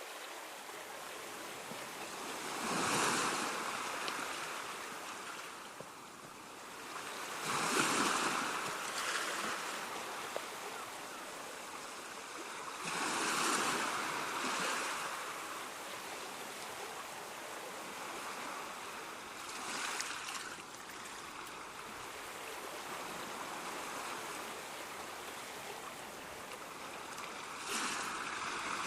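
Surf: waves washing in, a steady rush that swells about five times, several seconds apart.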